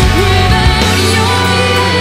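Background music with sustained instrumental notes over a steady bass line.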